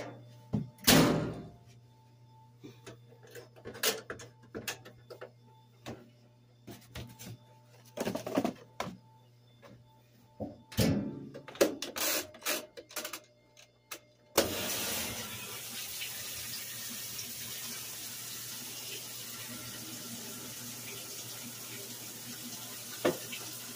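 Scattered knocks and bumps of things being handled, then about fourteen seconds in a steady rush of water starts as a washing machine begins filling.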